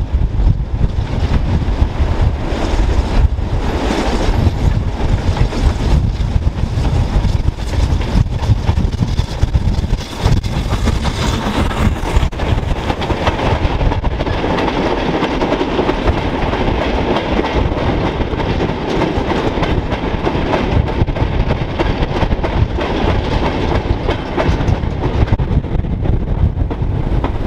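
Steam-hauled goods train passing close by: a long rake of empty open mineral wagons behind a BR Standard 9F locomotive, the wheels rumbling and clattering steadily over the rail joints. Wind buffets the microphone.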